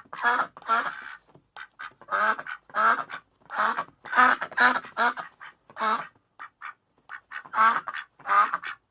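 Duck quacking over and over, in quick runs of two or three quacks, with a few fainter short calls between them.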